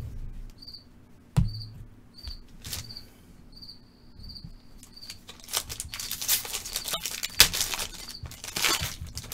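Trading-card packs and cards being handled, with a light knock or two early on and a crinkly rustling from about halfway in. A cricket chirps steadily throughout in short high chirps.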